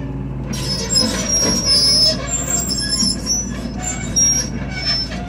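John Deere 2054D excavator tracking in reverse: the diesel engine runs under a rougher clatter from the track undercarriage that starts about half a second in, with repeated short high-pitched squeals.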